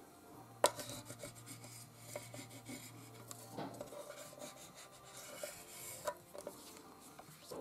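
Paper and cardstock being handled and rubbed by hand on a work surface: soft scraping and rubbing with scattered light taps, and a sharper click a little over half a second in.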